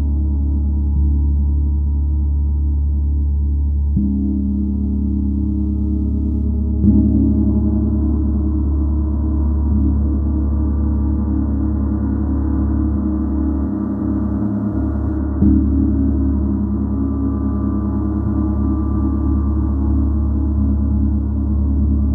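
Gong ringing in a sustained, low wash of overlapping tones, struck softly again about four, seven and fifteen seconds in, each stroke renewing the hum.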